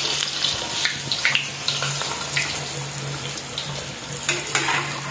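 A puri deep-frying in hot oil in a kadai, sizzling steadily, with short surges as a perforated spoon presses it down and splashes oil over it.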